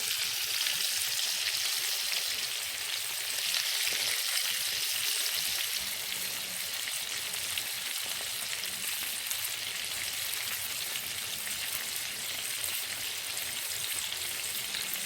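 Beef mince kebabs frying in mustard oil in a pan, with a steady, even sizzle.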